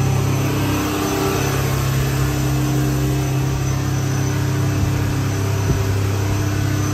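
A motor yacht under way on inboard diesel power, freshly in-frame overhauled, with the engines holding a steady cruise of about 2100 rpm and 17 knots, heard from inside the cabin. A steady low engine hum sits under a constant rush of water along the hull; the engines are running right.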